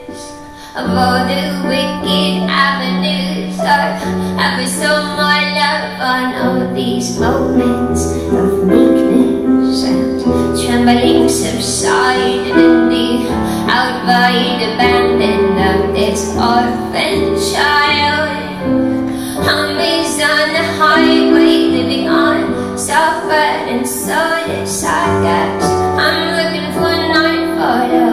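Woman singing a slow melody with vibrato over sustained piano chords, live acoustic music; it comes in about a second in after a brief lull.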